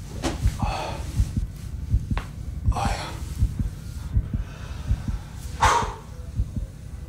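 A man breathing deeply and forcefully in loud, noisy exhalations while warming up, one big breath near the end. Under the breathing runs a steady low thudding, like a heartbeat, about every 0.7 seconds.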